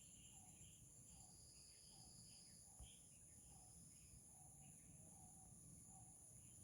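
Faint chorus of insects trilling steadily at a high pitch, with soft bird chirps repeating about twice a second and a single light tick about three seconds in.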